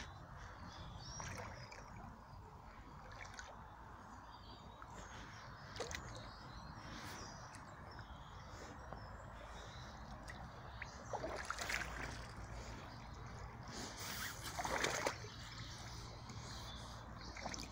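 Black Barbour rubber wellington boots splashing and sloshing through shallow stream water, over the steady trickle of the flowing stream, with two louder splashes in the second half.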